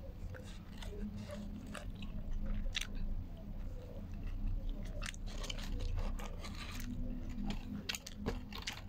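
Close-up chewing and biting of food, with irregular crunchy, wet mouth clicks, over a steady low hum.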